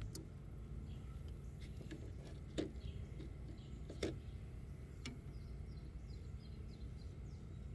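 Quiet outdoor ambience on a boat: a low steady background noise with a few soft clicks as a live cricket is worked onto a fishing hook by hand, and faint short bird chirps near the end.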